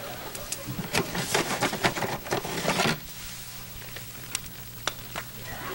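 Cedar log fire crackling and popping in a fireplace: a dense flurry of sharp pops for the first three seconds, then a few scattered pops over a steady low hum.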